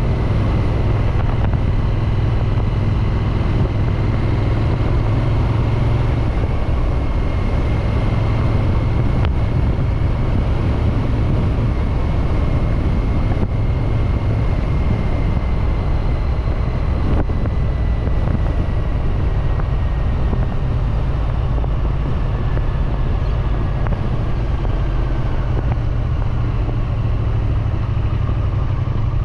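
Triumph Street Twin's parallel-twin engine and exhaust running steadily under way, recorded from a chest-mounted camera, with a thin high whine that drifts slowly up and then back down.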